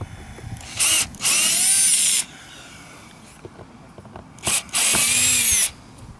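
Cordless drill driver backing screws out of a test panel: two pairs of whirring runs, each a quick blip followed by about a second of running, the motor pitch rising and falling.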